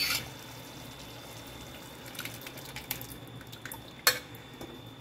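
Boiled kidney beans and dal being tipped from a glass bowl into a pan of simmering masala gravy: wet plopping with scattered small clicks, a sharp clink at the start and another about four seconds in as the bowl knocks the pan.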